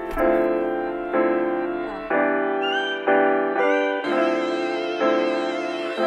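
Background music: full chords struck about once a second, each ringing out and fading before the next.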